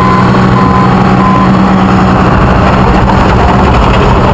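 Caterpillar bulldozer's diesel engine running steadily and loudly. Over it a reverse alarm beeps three times, about 0.6 s apart, and falls silent about a second and a half in, a sign the dozer has stopped backing up.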